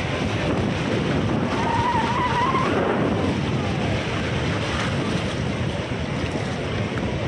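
Sea surf washing onto a shallow beach, small waves breaking continuously, with wind buffeting the microphone. A brief faint wavering high tone rises through the noise about two seconds in.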